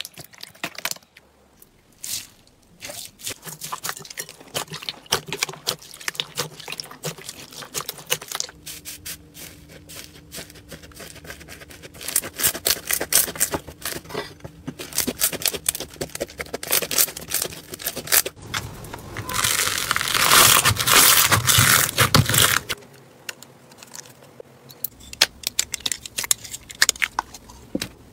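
Slime being squeezed, stretched and pulled by hand, giving a run of small crackles, clicks and pops. A louder, denser stretch of crackling comes a little after the middle and lasts about three seconds.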